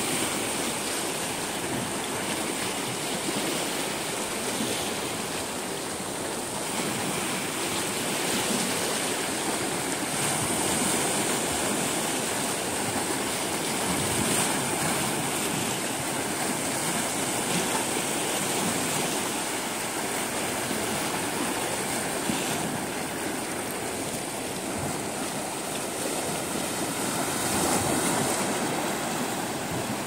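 Small Baltic Sea waves lapping and splashing against the boulders of a stone breakwater: a steady wash of water that swells a little now and then, most near the end.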